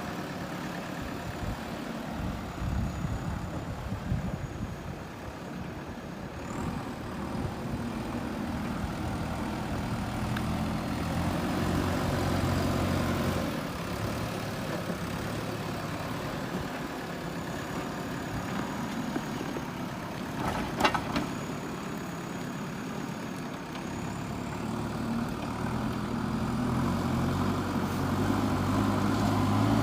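JCB 3DX backhoe loader's diesel engine running steadily as the machine works, with one sharp clank about two-thirds of the way through and the engine picking up toward the end.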